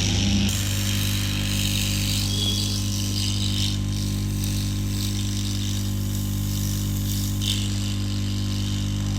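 Hot air rework gun blowing steadily, a constant low hum with a hiss of air, heating a motherboard chip to melt its solder.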